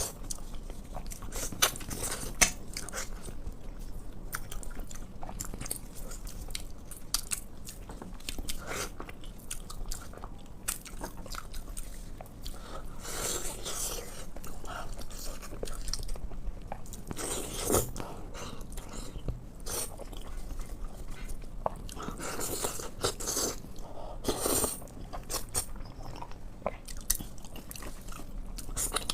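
A person biting and chewing pork in sauce close to the microphone, with many short wet clicks and several louder chewing bursts through the middle and near the end.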